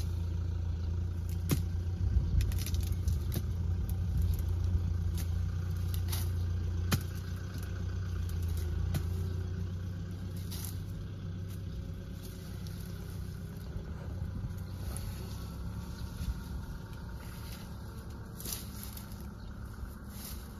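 Irregular sharp chops of a blade cutting cassava stalks, most frequent in the first ten seconds, over a steady low drone that eases off about seven seconds in.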